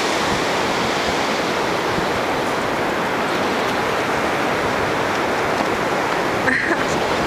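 Steady rushing noise like running water, with one short high-pitched call about six and a half seconds in.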